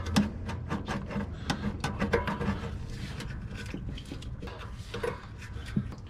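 Irregular clicks and rubbing of metal on metal as a new oxygen sensor is worked by hand and wrench into the exhaust manifold.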